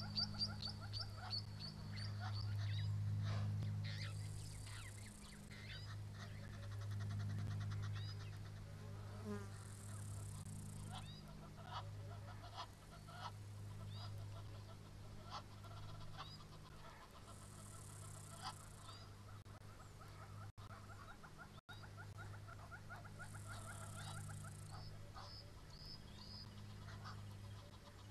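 Riverbank ambience of many small birds chirping and trilling in quick repeated notes, over a steady low hum. A high hiss swells up four times for about a second each.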